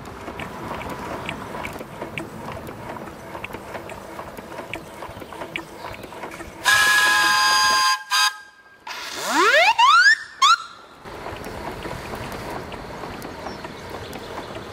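Steam whistle on a 4-inch scale Burrell compound road locomotive blown several times: a steady blast of about a second, a short toot, a whistle that rises in pitch as the valve opens, and a last short toot.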